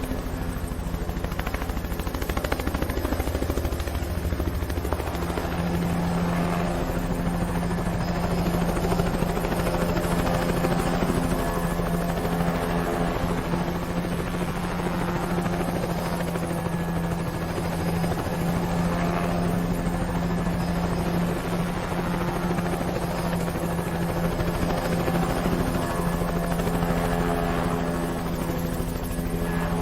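Helicopter sound effect: a steady rotor beat under a constant engine drone.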